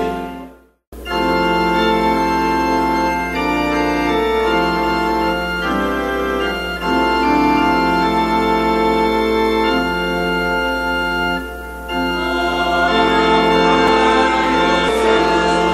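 Organ playing slow, sustained chords, after a short break of silence just under a second in.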